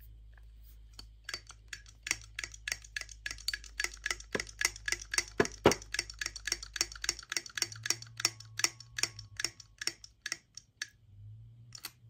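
Hydraulic crimping tool for battery-cable lugs clicking rapidly and regularly as it is worked by hand, about four clicks a second, stopping shortly before the end.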